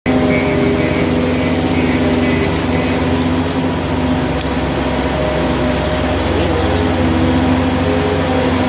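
JCB 155 skid steer loader's diesel engine running at a steady speed, a loud, even engine note with no pauses.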